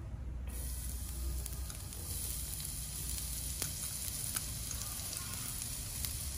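Minced garlic sizzling in hot rendered pork fat in a frying pan. The hiss starts suddenly about half a second in, as the garlic hits the oil, and carries on steadily with scattered crackles.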